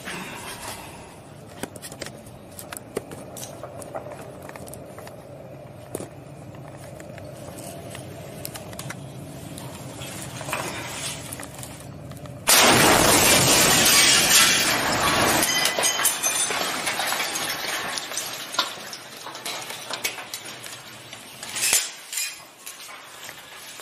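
A tank shot lands close by about halfway through: a sudden loud blast followed by a noisy rush with breaking glass that fades over several seconds. Before it, a low background with scattered faint clicks.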